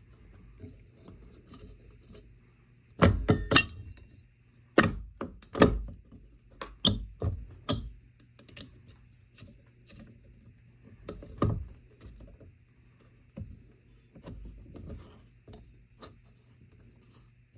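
Metallic clicks, clunks and key-like jingles of a fire alarm pull station (IBM 4252-1) being opened and reset by hand, in irregular clusters with the loudest knocks about 3 to 4 s in and again around 5 to 8 s and 11 s in.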